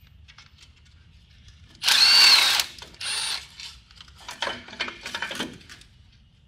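Tools working loose exhaust manifold bolts: a short, loud power-tool whirr about two seconds in, its pitch rising then falling, followed by several bursts of ratchet clicking.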